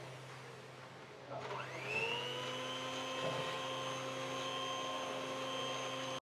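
Electric cake mixer's motor starting up about a second in, its whine rising and then running steadily at low speed as flour and cocoa are slowly mixed into the batter.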